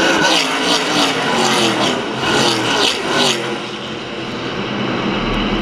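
A pack of NASCAR K&N Pro Series West stock cars' V8 engines going past at racing speed, several cars in quick succession. After about three and a half seconds the pack has gone by and the sound drops to a quieter, steady drone of engines further round the track.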